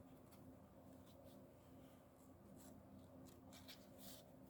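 Near silence with a faint low hum, broken by several soft, brief paper swishes and rustles from the pages of a guidebook being handled and turned.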